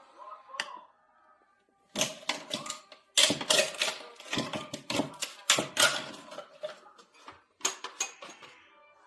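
Rapid, irregular clattering of hard clicks and knocks, starting about two seconds in and stopping shortly before the end.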